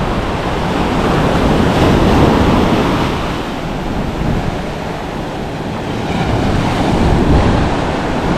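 Ocean surf washing onto the beach, with wind rushing over the microphone. The wash swells louder about two seconds in and again near the end.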